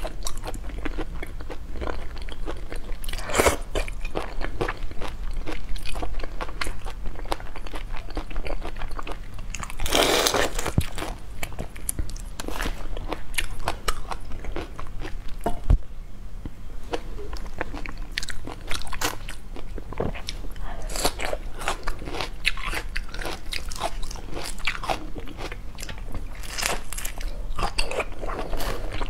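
Raw shrimp being peeled by hand and eaten, close-miked: the shells crackle and click as they are pulled apart, with biting and chewing, and a few louder crunches.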